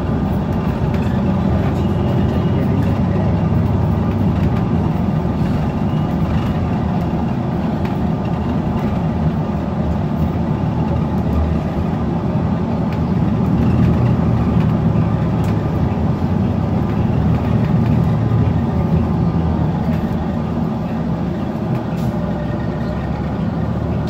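Rear-mounted Cummins Westport ISL-G natural-gas straight-six of a 2016 New Flyer XN40 city bus idling steadily at an even, low pitch.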